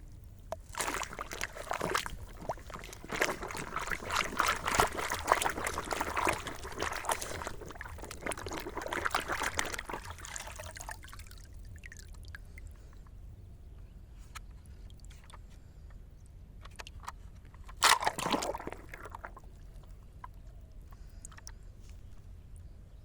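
Water sloshing and trickling with many small splashes, busiest for the first ten seconds, then quieter, with one short louder splash about eighteen seconds in.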